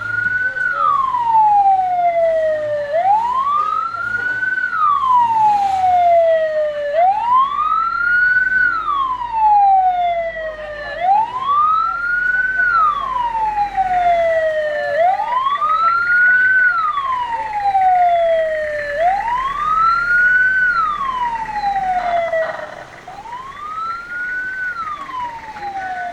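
A siren wailing in a repeating cycle, each wail rising quickly and falling slowly, about once every four seconds. The last wail is weaker.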